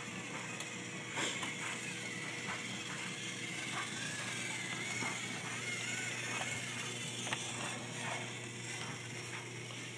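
Battery-powered TrackMaster Thomas toy engine running along plastic track: a steady gear whir with a faint wavering whine and scattered clicks.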